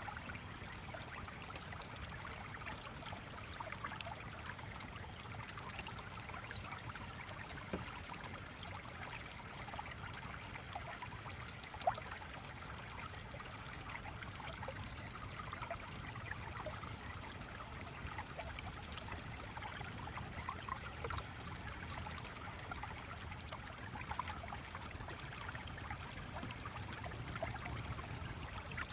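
Gently flowing stream trickling steadily, mixed with the frequent small crackles of a fireplace fire and one sharper pop about twelve seconds in.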